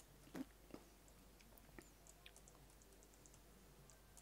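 Near silence with faint, scattered computer mouse clicks as edges are selected one after another, and a soft thump about half a second in.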